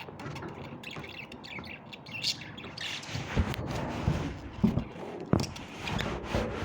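Birds squawking and chirping, with several sharp knocks in the second half.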